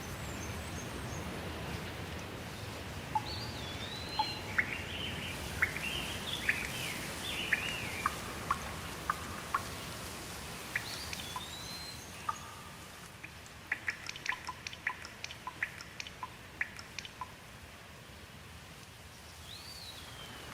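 Steady rain hiss with birds calling over it: short swooping whistles and chirps, then a quick run of short sharp ticks, and one more swooping whistle near the end.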